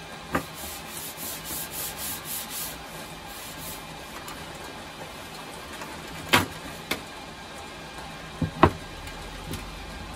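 Paper towel rubbing over a perforated PC case panel in quick back-and-forth wiping strokes, about four a second, followed by a few sharp knocks as the panel is handled, the loudest a double knock near the end.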